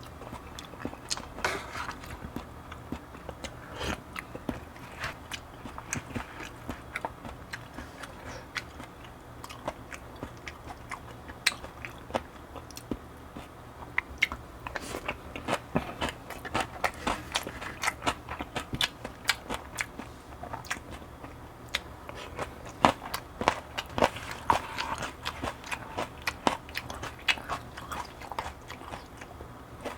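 A person eating a meal of barley bibimbap and cheonggukjang close to the microphone: chewing, with many short clicking mouth sounds throughout.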